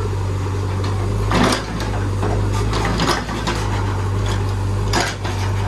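JCB backhoe loader's diesel engine running steadily, with a few sharp knocks over it, about a second and a half apart.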